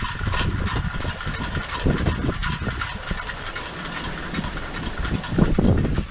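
Gusty wind buffeting the microphone, a steady low rumble and hiss, as a metal pecking-chickens whirligig spins fast in it, with scattered light clicks.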